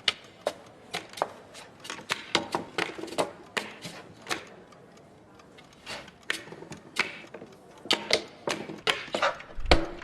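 Foley sound-effects work: a run of sharp, irregular taps and clicks, several a second, with a brief lull midway and a heavier thump near the end.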